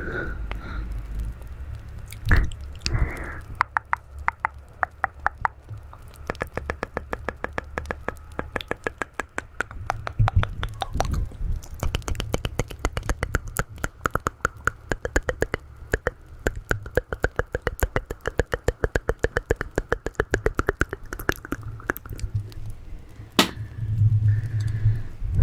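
Close-up ASMR mouth sounds: a long, rapid run of wet tongue and lip clicks, several a second, with a single louder click near the end.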